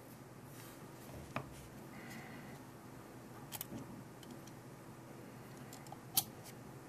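Quiet room tone with three short, sharp clicks, spread a couple of seconds apart.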